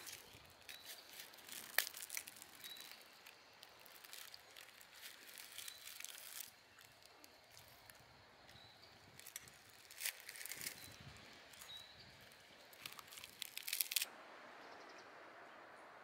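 Plastic wrapper of a convenience-store triangle kimbap rice ball crinkling and tearing as it is unwrapped, in three bouts of crackling that stop about two seconds before the end, leaving a steady faint outdoor hiss.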